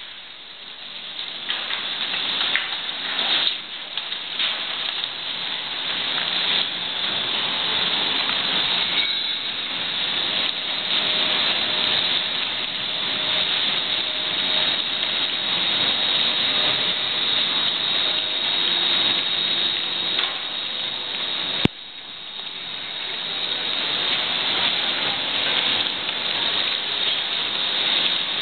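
Steady hissing, crackling industrial noise of a waste-handling plant, with mixed household refuse being moved. A sharp click comes about 21 seconds in; the noise drops away there and builds back up over a few seconds.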